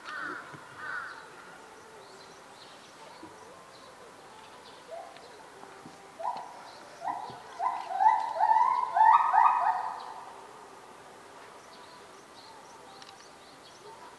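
A bird calling: a couple of short calls at the start, then from about five seconds in a run of about ten short notes that come quicker and grow louder before stopping about ten seconds in.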